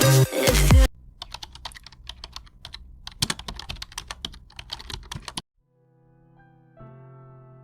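Dance music cuts off about a second in. A run of quick, irregular clicks like typing on a keyboard follows for about four seconds, then stops suddenly. Soft piano music begins near the end.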